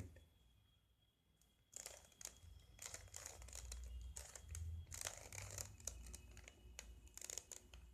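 Plastic Rubik's cube being twisted rapidly by hand: a run of irregular light clicks and rattles from its turning layers, starting about two seconds in.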